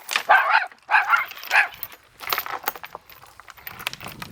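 A dog barking, three loud barks in the first two seconds, then scattered clicks and softer sounds.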